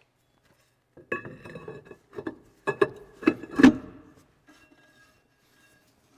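New brake drum being slid over the wheel studs and seated on a rear hub: a run of metal clanks and clinks that ring, the loudest about three and a half seconds in, then fainter ringing ticks as it settles.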